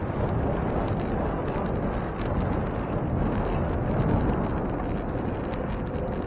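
Wind buffeting the microphone of a camera on a moving bicycle: a steady low rumble of noise with no distinct events.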